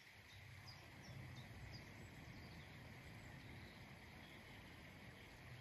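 Near silence: quiet open-air ambience with a faint low rumble and a few faint, high bird chirps in the first two seconds.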